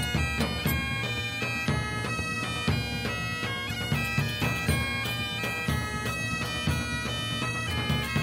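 Background music: sustained droning notes and a changing melody over a regular low beat.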